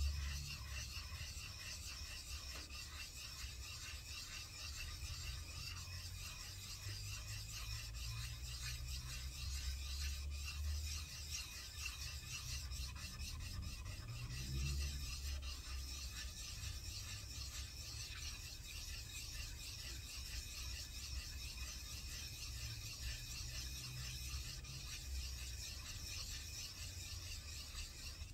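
Metal vise jaw being rubbed back and forth by hand on sandpaper laid on a flat surface: a steady, rhythmic rasping scrape as the jaw face is lapped flat.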